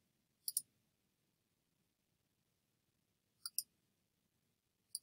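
Two computer mouse clicks, each a quick pair of ticks, about half a second in and again about three and a half seconds in, with near silence between them.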